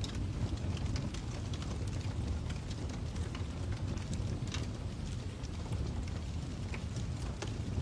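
Crackling fire: a steady low rumble with irregular sharp pops and snaps scattered throughout.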